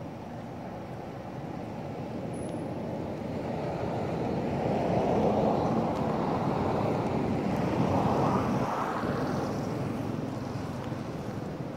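A vehicle passing by: a rushing engine-and-road noise that swells over several seconds, peaks about halfway through, then fades away.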